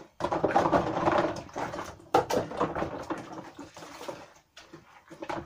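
Dishes being washed by hand in a plastic basin: water sloshing and splashing for the first couple of seconds, then a series of sharp clinks and knocks as the dishes are handled.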